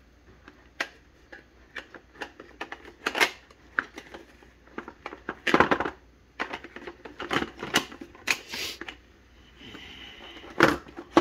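Hard plastic pistol cases and their contents being handled: scattered clicks and knocks of plastic, with a few longer rustles.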